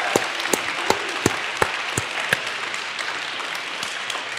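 Audience applauding, with a few sharper, nearer claps in the first two seconds; the applause eases off gradually.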